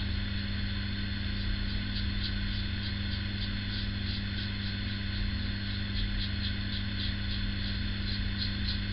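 PAL Injectomatic single-edge injector razor scraping through lathered stubble on the chin and upper lip in a run of short, quick strokes, about three a second, over a steady electrical hum.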